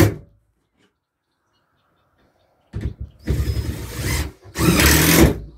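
Cordless drill-driver driving screws down into floor panels, in two runs of about a second each in the second half, with the tail of an earlier run at the very start.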